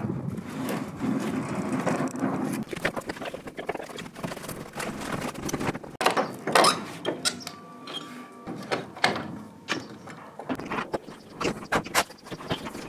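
Irregular wooden knocks and clatter from old roof battens being stripped off timber rafters, with a sharper bang about six and a half seconds in.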